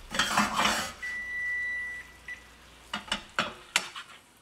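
Opens with a short loud burst of noise. About a second in, a cooking timer sounds one steady high beep lasting about a second, then a short blip: the patties' seven minutes on the first side are up. Then a few sharp clicks and scrapes as a plastic spatula works against the nonstick frying pan under the burger patties to flip them.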